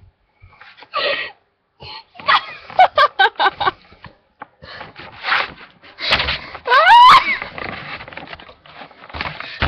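Close-up human voices: short choppy vocal bursts like giggling and mumbled sounds, then a loud rising squeal about two-thirds of the way through.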